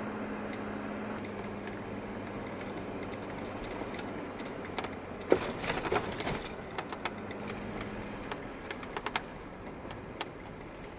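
Steady road and engine hum of a moving car heard from inside the cabin, with a cluster of sharp clicks and knocks about five to seven seconds in and a few more near nine seconds.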